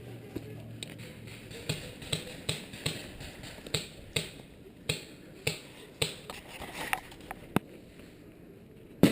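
Paintball markers firing, a string of sharp pops about two or three a second, with one louder shot near the end.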